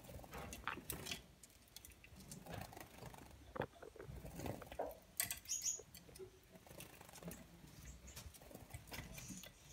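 Gouldian finches bathing in a shallow plastic water bowl: faint, irregular small splashes, wing flutters and light taps.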